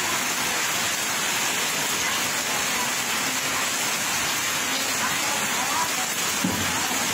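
Heavy rain falling steadily on a flooded road and wet concrete, a constant even hiss.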